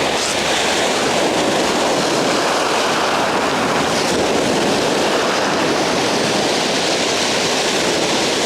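Ocean surf breaking and washing up the beach: a loud, steady rush of noise.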